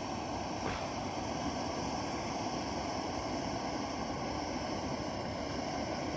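Coleman Fyrestorm gas stove burner running with a steady hiss under a pot of water.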